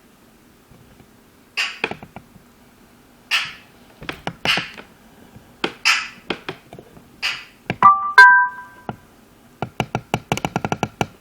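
Bench vise being cranked to press a bearing onto a rocker trunnion: metal knocks and short scraping bursts every second or two, a brief tone about eight seconds in, then a quick run of clicks near the end.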